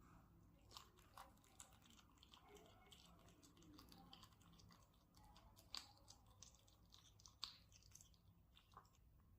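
A kitten chewing fish: faint, irregular crunching and small wet clicks, with two sharper clicks about six and seven and a half seconds in.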